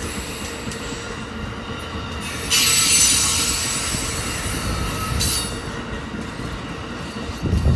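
Amtrak California bi-level passenger cars rolling past on the rails, a steady rush of wheel-on-rail noise with faint thin, high squealing tones. It grows louder and hissier from about two and a half to five seconds in, and a loud low rumble sets in at the very end.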